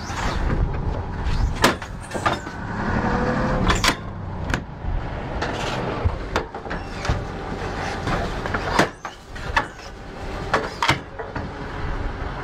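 Sharp metallic clicks and knocks from rockets being pushed into the launch tubes of an aircraft rocket pod, over a steady low engine rumble.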